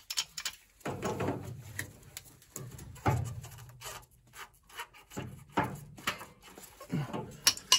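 A stuck plastic drain valve on a gas water heater being forced by hand: several short strained creaks and rubbing sounds among sharp clicks, and the valve does not give.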